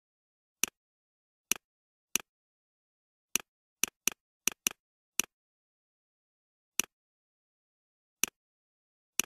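A computer mouse clicking about a dozen times at an uneven pace. Each click is a sharp press followed closely by a softer release tick, with silence in between.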